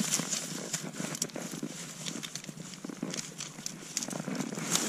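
Irregular crunching of snow and rustling of dry reed stalks as someone kneels and shifts in them, with scattered small clicks.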